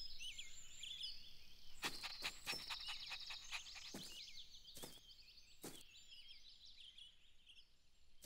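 Faint birdsong ambience, many short chirps throughout, with a handful of soft knocks or taps from about two seconds in.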